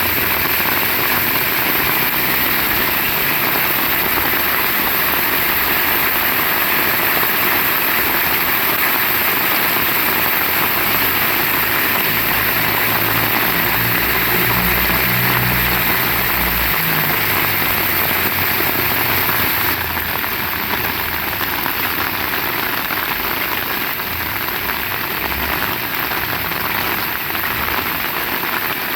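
Heavy rain falling steadily. A low engine hum rises under it about halfway through, then fades. Near the end the rain's hiss becomes a little softer.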